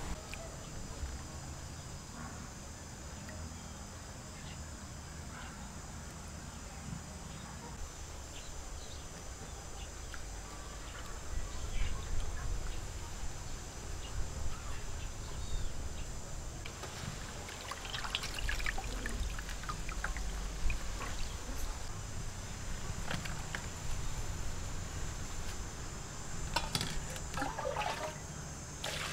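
Water splashing and trickling in a large metal bowl as chicken eggs are rinsed by hand. Scattered small clicks and knocks against the bowl are busiest in the second half.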